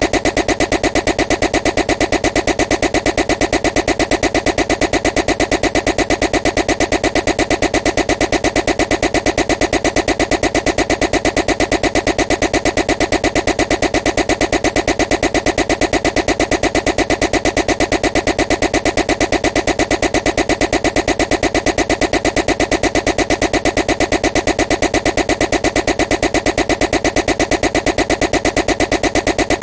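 A loud, unchanging noise pulsing rapidly and evenly, looped without a break.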